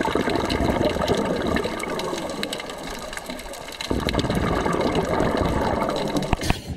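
Underwater bubbling and rushing from a scuba diver's exhaled breath leaving the regulator. It comes in two long surges with a quieter stretch between, the second starting about four seconds in, and cuts off near the end.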